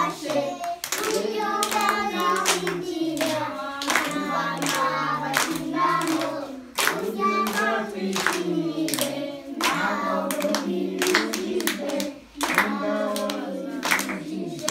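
A group of young children singing together, clapping their hands to a steady beat.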